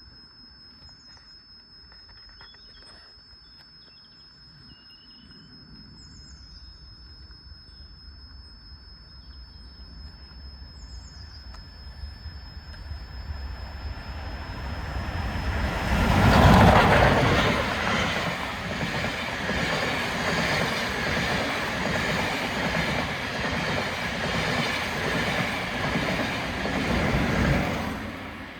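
LMS Royal Scot class three-cylinder 4-6-0 steam locomotive 46100 approaching and passing at speed, loudest as the engine goes by about 16 seconds in. The coaches follow with a steady rolling rumble and clatter of wheels over the rail joints, dropping off sharply near the end.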